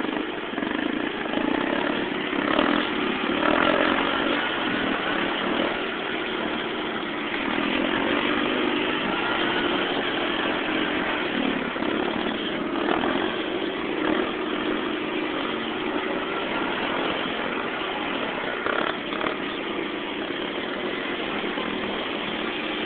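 Sport ATV engine running without a break, its pitch and level wavering, while the quad is held up in a long wheelie.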